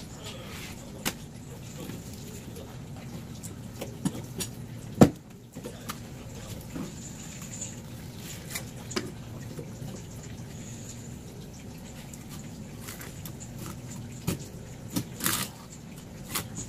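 Knife and a whole olive flounder being handled on a cutting board while filleting: scattered sharp knocks and wet slaps as the blade taps the board and the fish is turned over and pressed down, the loudest about five seconds in and a quick cluster near the end, over a steady low hum.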